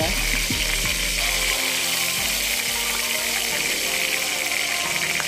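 Cooking oil heating in a kadhai, crackling and spattering steadily because water was left in the pan.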